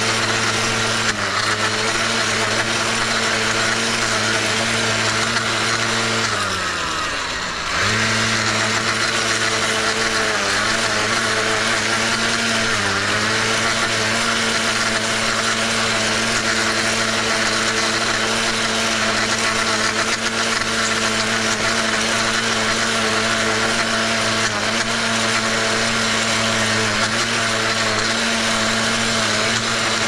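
Husqvarna 500-series battery blade edger running steadily, its electric motor whining over the hiss of the blade cutting the grass edge along a concrete sidewalk. About six seconds in the motor winds down almost to a stop and spins back up a second later, and it dips briefly twice more.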